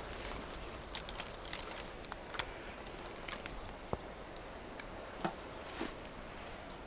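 Faint scattered clicks and rustles from a spinning rod and reel being handled during a cast and retrieve, with one sharper knock about four seconds in, over a low steady rumble.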